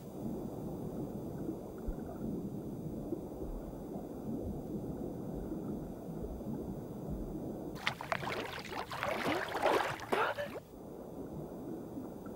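Muffled low rumble of water heard from below the surface. About eight seconds in, a burst of splashing and bubbling lasts nearly three seconds, then the muffled rumble returns.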